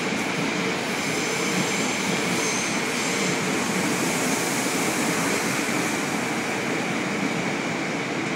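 Korail electric commuter train running past the platform screen doors with a steady high whine over the rumble, fading near the end as it leaves.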